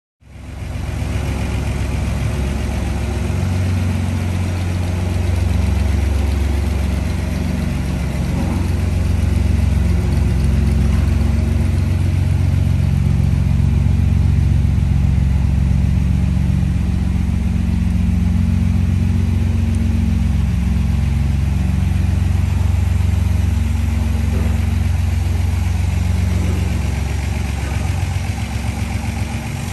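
Austin-Healey 100/6's 2.6-litre straight-six engine idling steadily.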